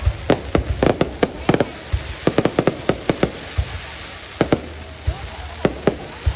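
Aerial fireworks bursting: a rapid, irregular run of sharp bangs over a low rumble, thinning out for a moment around the middle before picking up again.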